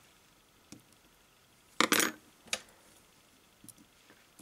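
Small metallic clicks and clinks of tweezers and lock pins being handled and set down on a pin tray. There is a sharp cluster of clinks about two seconds in, another clink half a second later, and a few faint ticks.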